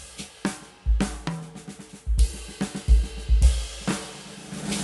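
Background music with a drum kit beat and cymbals.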